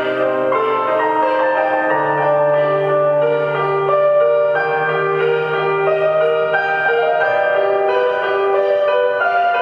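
Figure skating free-skate program music: a melody of separate notes over long held bass notes.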